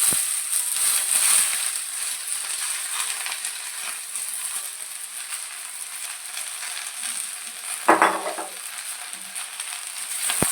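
Malabar spinach (pui saak) sizzling as it fries in hot oil in a kadai, over onions already fried red. The sizzle is loudest at the start and gradually eases off, with a brief knock about eight seconds in.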